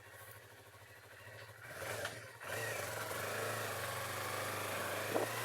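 Motorcycle engine running steadily, with a rushing noise building about two seconds in as it gets under way.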